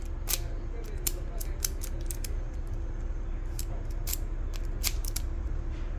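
Key being turned in a freshly reassembled Toyota Yaris ignition lock cylinder: about a dozen sharp, unevenly spaced metal clicks as the cylinder works through its positions, over a steady low hum.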